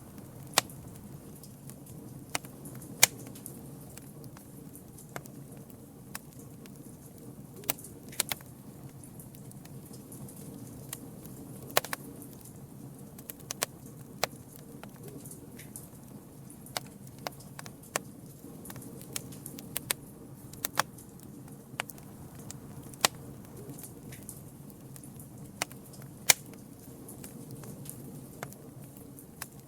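Campfire burning, with irregular sharp crackles and pops, a few much louder than the rest, over a steady low rumble of the flames.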